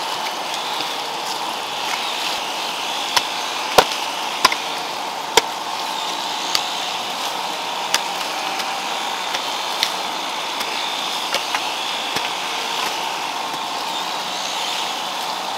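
Garden hoe chopping into loose soil, a series of irregular strikes roughly one every second, some of them sharp knocks, the loudest about four seconds in, over a steady background hiss.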